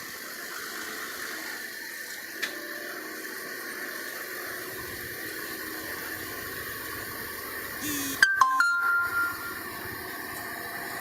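Steady rushing of flowing river water, broken about eight seconds in by a brief louder clatter with a couple of short high tones.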